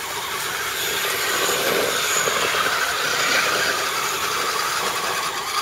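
Small electric motors and geared drivetrains of RC scale crawler trucks whirring as they crawl over the dirt trail, growing louder over the first couple of seconds as one comes close.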